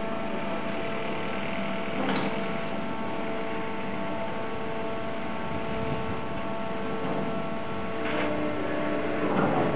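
Steady electric machinery hum from a harbour crane, several fixed tones held over a background rush, with a brief louder swell about two seconds in and more noise building near the end.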